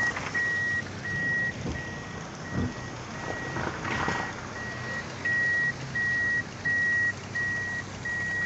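An electronic warning beeper sounding a steady single-pitch beep about one and a half times a second, the beeps louder in the second half and stopping near the end, with steady rain underneath.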